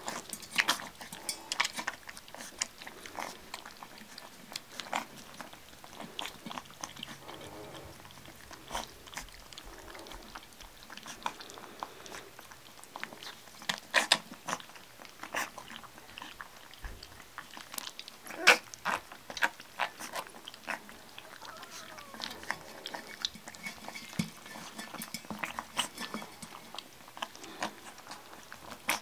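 Yellow Labrador puppies feeding from a stainless steel saucer dish of milk: irregular clicks and taps of paws and claws on the metal dish, with a few louder knocks, over wet lapping and slurping, and a few brief puppy whimpers.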